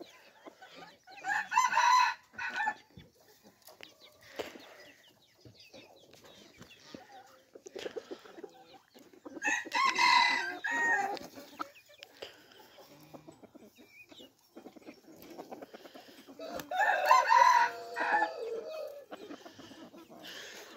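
Red junglefowl-type rooster crowing three times, about seven to eight seconds apart, with hens clucking softly between the crows.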